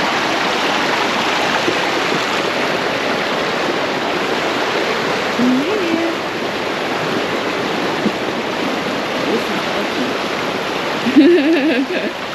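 Mountain stream rushing steadily over rocks, a loud constant wash of water. A voice is heard briefly in the middle and again near the end.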